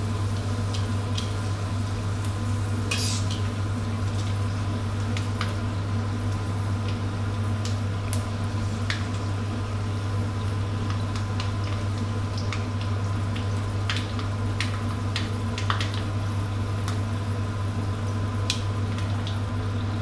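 Dried pla wong fish deep-frying in hot oil in a stainless steel wok: a steady sizzle with scattered sharp clicks as metal tongs touch the fish and the wok. The bubbling is easing, the sign that the moisture has cooked out and the fish is turning crisp. A steady low hum runs underneath.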